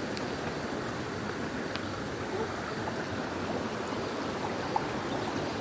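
Steady rushing of flowing stream water, with a few faint ticks over it.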